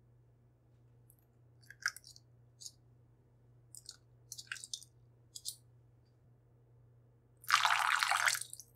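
Liquid being poured into a glass bowl of wet banana muffin batter: a scatter of small wet crackles and splats as buttermilk goes in. Near the end comes a louder splash of about a second as a spoonful of vanilla extract is poured in.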